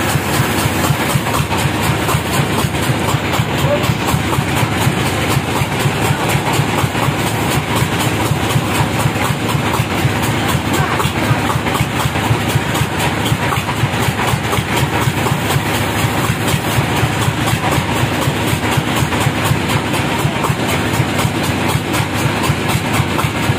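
Band sawmill machinery running steadily without cutting, a continuous mechanical drone with a fast, even pulse.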